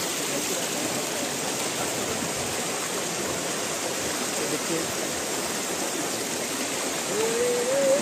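Rushing water of a rocky stream running over boulders: a steady, even wash of water noise.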